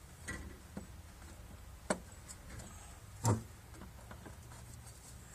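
A few light, separate clicks and knocks of the fuel pump and float assembly being worked down into the fuel tank opening, the loudest knock a little over three seconds in.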